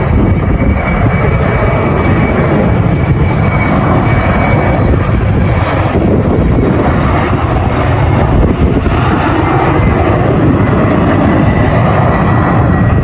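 Jet engines of a J-AIR Embraer regional jet running at takeoff power as it rolls down the runway and lifts off. A loud, steady jet noise with a thin steady whine above it.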